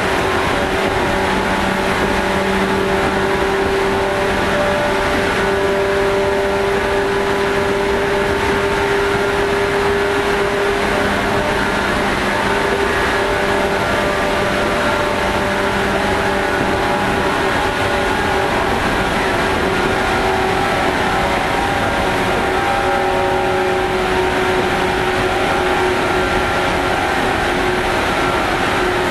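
Running sound of a JR 115 series electric train: a steady whine from the traction motors and gears over the rumble of wheels on rail, at a steady speed.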